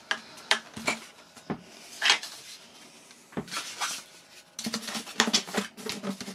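Handling noise from a foam RC plane fuselage and its plastic parts: scattered light clicks and knocks as it is picked up and turned in the hands, with a quicker cluster of knocks near the end.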